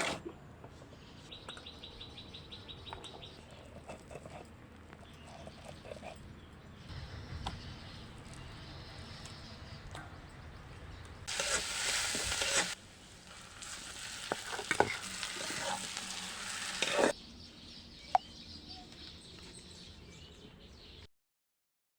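Cooking sounds of dal puri being made: quiet stirring and handling at first, then hot oil sizzling loudly in two stretches past the middle, each starting and stopping abruptly. A rapid high chirping sounds briefly near the start.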